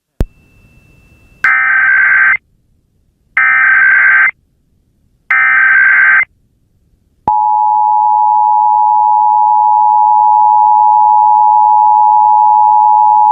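Emergency Alert System broadcast alert: three one-second bursts of the SAME digital header data, evenly spaced about a second apart, then about seven seconds in the steady two-tone EAS attention signal (853 and 960 Hz) starts and holds.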